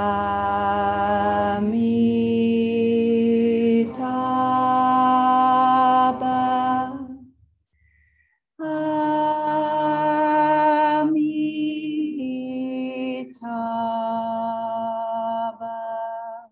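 Voices chanting a Buddhist mantra together in long held notes that step slowly up and down in pitch. There are two phrases, with a breath pause of about a second and a half between them.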